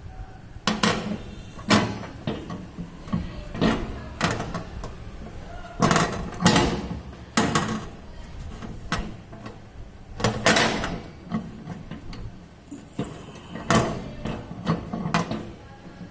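Irregular knocks and clatter, a dozen or so, some with a short ring, as microwave-oven accessories such as the rotating turntable stand are handled and set in place inside the oven.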